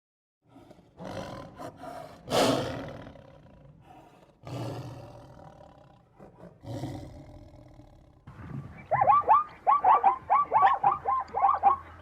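A big cat roaring several times, rough, deep calls with gaps between them. About 9 s in, a second animal starts a quick run of short yelping calls, several a second.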